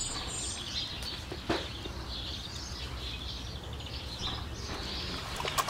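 Quiet background: faint, distant bird chirps over a low, steady hum, with a single sharp tap about one and a half seconds in.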